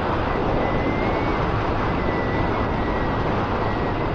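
Honda Fireblade motorcycle riding along at steady speed: its inline-four engine drones under a steady rush of wind on the action camera's microphone.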